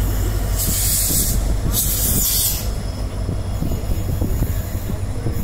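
An express train's coach running at speed, heard from inside: a steady low rumble of wheels on rail with scattered knocks over joints and points. Two short rushes of hiss come about a second and two seconds in.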